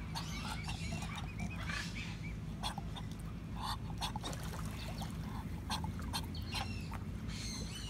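Scattered short animal calls over a steady low hum.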